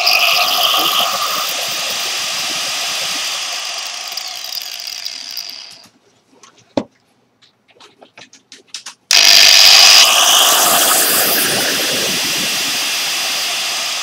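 Angle grinder running free with no load through a dimmer-type speed controller, a steady motor whine that slowly drops in level as the speed is turned down. It cuts off about six seconds in, a few small clicks follow, and it is switched on again at full sound about nine seconds in before easing down again.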